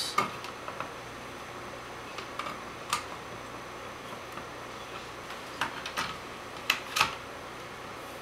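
Scattered light clicks and taps of screws and a screwdriver against a plastic thermostat plate as it is screwed to the electrical box, over a faint steady hum.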